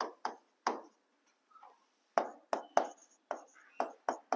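Pen tapping and scratching on an interactive board's screen as handwriting is traced: a string of short, sharp strokes, each fading quickly, with a pause about a second in.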